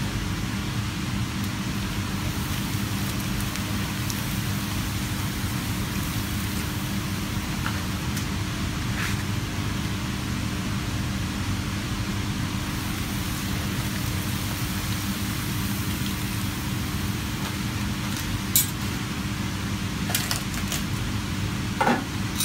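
Steady kitchen hum and rush, with hot oil sizzling as pappadoms deep-fry in a pan. Near the end a few sharp clinks of a metal turner against the pan.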